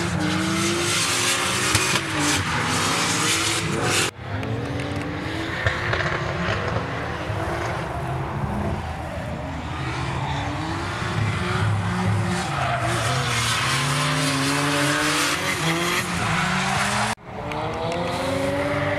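Drift cars sliding round the circuit, their engines revving up and down over tyre squeal. The sound drops out briefly twice, about four seconds in and near the end.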